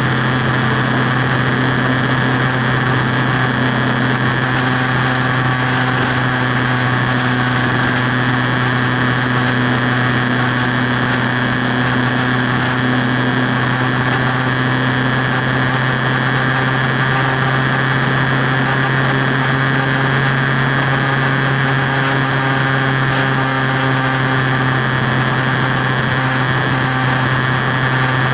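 Motorcycle cruising at steady highway speed: the engine's drone holds one pitch throughout, under a constant rush of wind noise.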